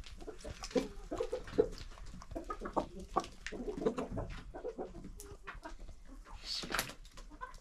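Domestic hens and roosters clucking softly while they peck compound feed from a dish, with scattered short taps. One brief louder sound comes near the end.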